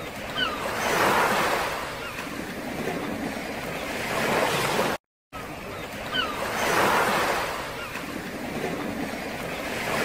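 Sea waves washing against the shore, swelling and easing twice, with a few short faint gull cries over them. The sound cuts out for a moment about five seconds in, then the same stretch of surf and cries plays again.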